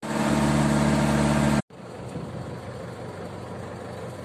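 Intro song music cuts off abruptly about one and a half seconds in, giving way to the steady running of a boat engine.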